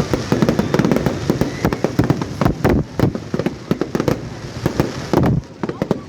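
Fireworks going off in quick, irregular succession: a dense run of sharp cracks and bangs, several a second.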